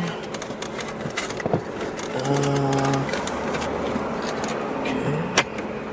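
Rummaging through a car's glove compartment: scattered clicks, knocks and rustles of papers and objects being moved about. A low steady tone is held for under a second near the middle, and a sharp click comes near the end.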